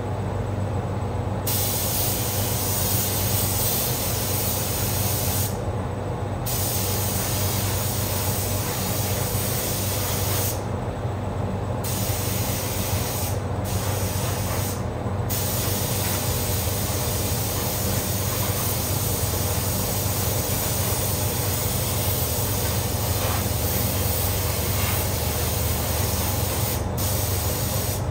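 Compressed-air paint spray gun hissing as it sprays paint, the hiss cutting out for a second or so about five times as the trigger is let go. Under it runs the steady drone of the paint booth's fan.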